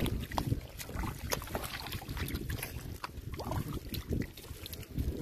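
Hands splashing and sloshing in shallow muddy water while feeling for fish, with many short irregular wet slaps and clicks. Wind rumbles on the microphone underneath.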